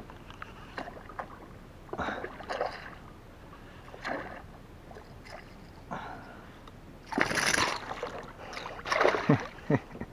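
A hooked trairão (giant wolf fish) thrashing and splashing at the water's surface beside a kayak as it is played in, with its loudest splash about seven seconds in and another near the end. Scattered light knocks and clicks run between the splashes.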